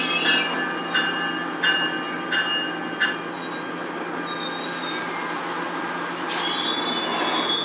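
Passenger train running behind an ALP-46A electric locomotive, heard from the coach's front vestibule: steady running noise with a low hum, the wheels squealing in short pulses about every two-thirds of a second for the first three seconds, then a high steady squeal that returns after a sharp burst near the end.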